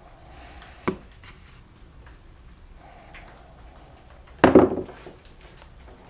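Workshop handling sounds: a sharp click about a second in and a louder knock a few seconds later, as objects are picked up and set down on the bench, with faint scratchy rubbing between them.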